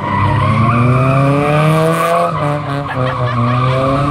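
Car engine revving hard while drifting, over a steady squeal of sliding tyres. The engine note climbs, drops sharply a little over two seconds in, then climbs again.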